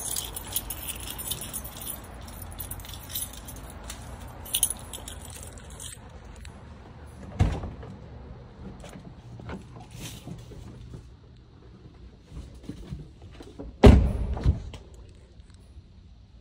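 Light metal jingling for the first six seconds, then a sharp thud about seven seconds in. Near the end a car door shuts with a heavy thud, the loudest sound.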